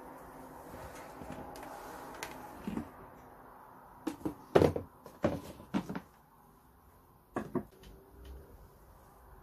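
Sliding glass doors of a reptile terrarium moving along their track with a soft scrape. A run of sharp knocks and clacks follows about four seconds in, and two more come near the end.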